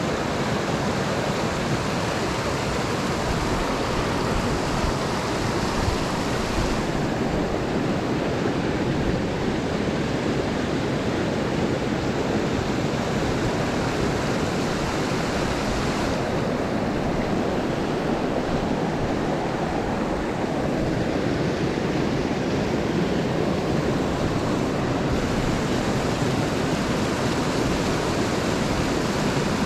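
Mountain stream water rushing in a steady, even hiss; its brightness shifts abruptly three times.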